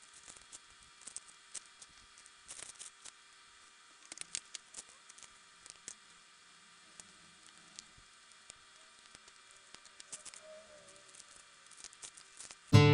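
Scissors snipping, with small clicks and rustles from handling a plastic cup, faint over a steady hiss. Acoustic guitar music starts suddenly at the very end.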